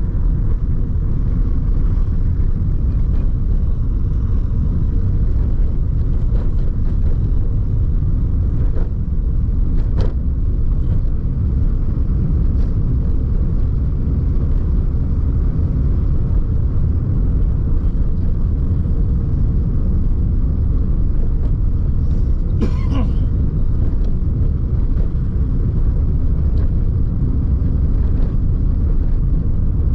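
Steady low rumble of a moving car, engine and road noise heard from inside the cabin. A brief, sharper sound stands out about two-thirds of the way through.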